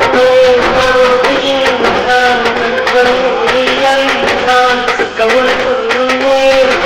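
Loud music: a melody of held, bending notes over a steady beat.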